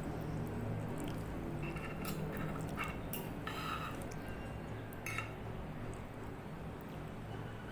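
Cutlery clinking against a dish a few times, around two, three and five seconds in, over a steady low hum.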